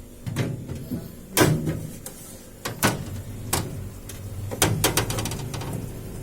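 A series of sharp knocks and clicks, the loudest about a second and a half in and a cluster near five seconds, over the steady low hum of a running refrigerator compressor.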